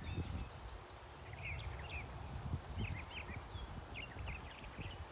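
Birds chirping: many short, quick calls overlapping, over a low rumbling background.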